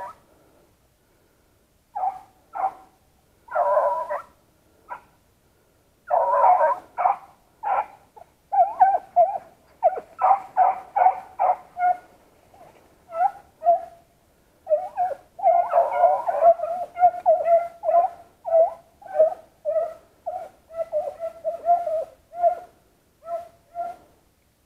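Beagles baying in short calls, scattered at first, then from about eight seconds in a close, steady run of about two calls a second: a pack giving tongue as it runs a rabbit's trail.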